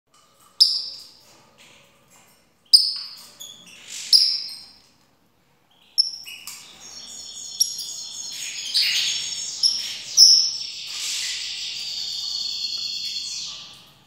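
Small caged parrot calling: a few sharp, separate chirps in the first four seconds, then from about six seconds a continuous warbling song of high whistled notes that runs on and fades out near the end.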